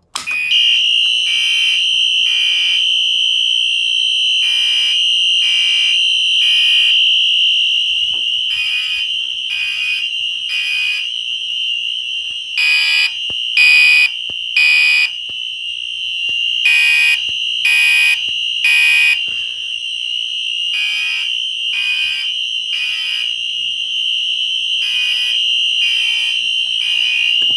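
Fire alarm system in alarm after a manual pull station is pulled: one horn sounds a continuous high tone while other horns beep the temporal-three evacuation pattern, three beeps then a pause, about every four seconds. It is very loud.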